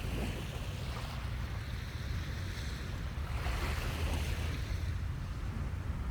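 Sea waves washing onto a beach, the surf hiss swelling about halfway through, with wind buffeting the microphone as a steady low rumble.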